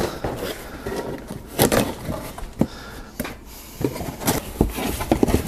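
A cardboard shipping box being cut and opened with a pocket knife: a string of irregular scrapes, cracks and rustles of tape, cardboard and packing.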